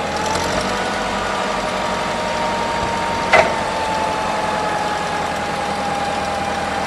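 A 1994 Daewoo 5,000 lb forklift's freshly rebuilt Hercules 2.7-litre LP-gas engine running under hydraulic load while the three-stage mast lifts, with a steady whine that slowly drops a little in pitch. A single sharp clack sounds about three and a half seconds in.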